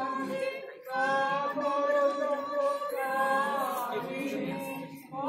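A group of voices singing a song together in long held phrases, with a short break about a second in and another near the end.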